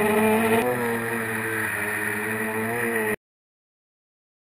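Model airplane's motor and propeller droning steadily in flight, heard from a camera on board, its pitch wavering slightly. It cuts off abruptly about three seconds in.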